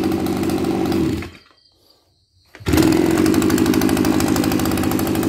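Makita MEM2610U brushcutter's small petrol engine idling steadily, then switched off about a second in and running down to a stop. After about a second of quiet it fires up again at once and settles back into a steady idle, showing it restarts easily.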